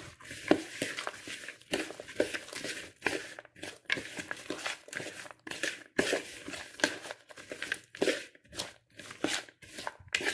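A spoon stirring a sticky mix of chopped nuts and coconut flakes in a plastic bowl: irregular scraping, crunching strokes with short pauses between them.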